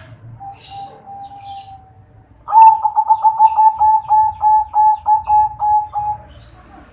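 Zebra dove (perkutut) singing in a high, crisp 'kresing' voice. After a faint drawn-out note, a loud rapid string of about fourteen short coos starts about two and a half seconds in, at roughly four a second, and stops near the end. Small birds chirp faintly behind it.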